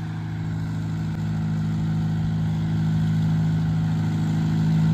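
Toy-train locomotive's engine running steadily with a low, even hum, growing louder as the train comes closer; the rider takes it to be a diesel rather than steam.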